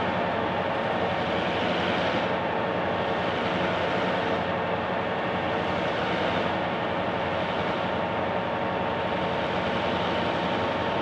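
EMD 567-engined diesel locomotives running steadily and loudly, a dense engine sound with a steady hum, as they work to restart a stalled train on a steep grade.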